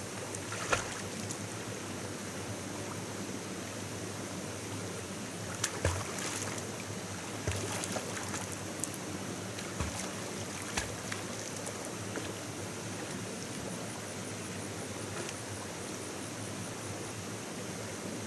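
Steady hiss of running water from a stream, with a handful of short sharp knocks scattered through the first two-thirds.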